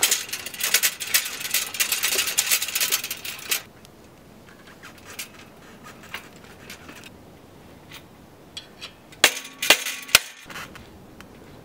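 Vintage bicycle saddle rattling and clinking, metal on metal, as it is shaken by hand on the seat post for about three and a half seconds. After a pause, four or five sharp metallic clicks and clunks, one ringing briefly, as the handlebars are worked by hand.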